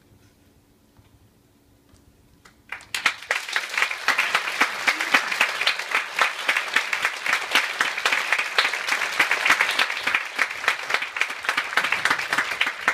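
Audience applause in a theatre, breaking out suddenly about three seconds in after the last note of the music dies away, then continuing steadily.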